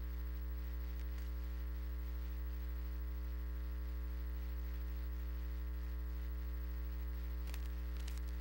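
Steady electrical mains hum with a buzzy stack of overtones, unchanging throughout, with a couple of faint clicks near the end.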